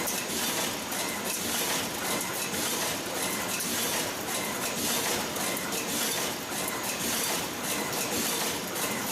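Shinmaywa TRD510 automatic wire cutting, stripping and crimping machine running, a steady mechanical clatter with rapid repeated clicks and clinks from its cutting and crimping strokes.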